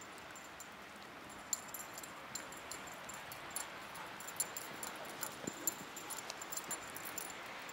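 Siberian husky running through snow: a quick, irregular run of light, high clicks starting about a second and a half in, over a steady hiss.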